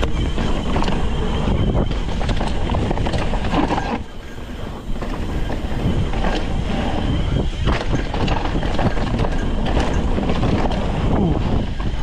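Wind buffeting the microphone over the rattle and tyre noise of a Cannondale Scalpel full-suspension mountain bike riding a dirt trail, with many small clicks and knocks as it rolls over bumps. It eases briefly about four seconds in.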